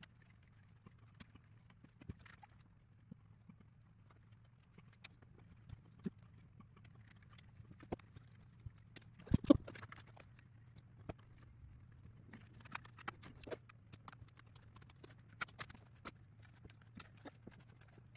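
Scattered light clicks and taps of small plywood model-kit parts and tools being handled and pressed together on a tabletop, over a faint low hum, with a louder knock about nine and a half seconds in.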